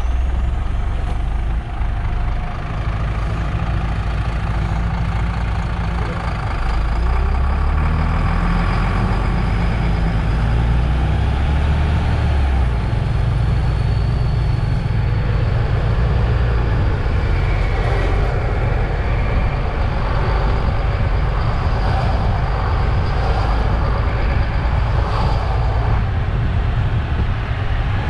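Diesel engine of a MAN Lion's City GL NG 323 articulated bus running, heard from outside the bus. The low engine note shifts several times in the first half, then holds steady, with a faint high whine above it.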